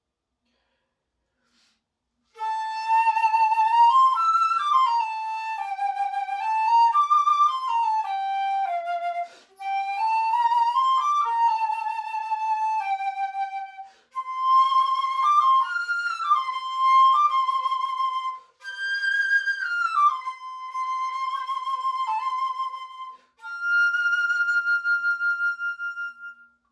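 Concert flute played solo: a melody in five phrases with short breaks for breath between them, closing on a long held high note. It starts about two seconds in.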